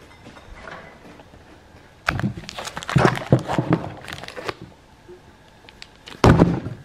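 Vacuum-sealed plastic bags of meat crinkling and rustling as they are lifted and shifted by hand, in irregular bursts, with a louder bump near the end.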